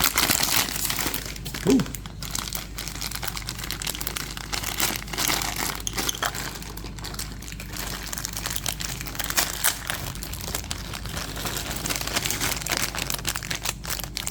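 Packaging of a blind-box vinyl figure crinkling and rustling as it is unwrapped by hand, a steady run of small crackles.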